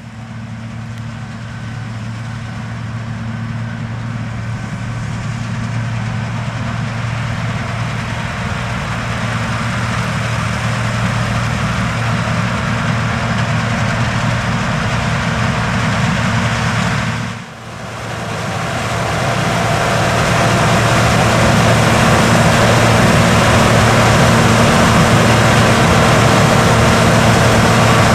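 John Deere Titan-series combine harvesting corn: a steady diesel engine hum with threshing and machinery noise, growing louder as it goes on. There is a brief drop in sound a little past halfway.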